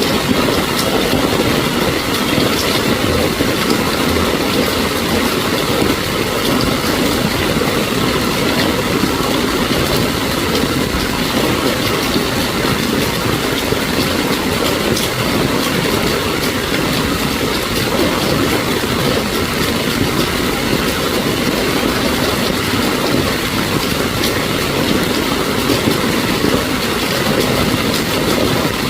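Steady heavy rain mixed with the running of vehicle engines in slow traffic through flooded streets.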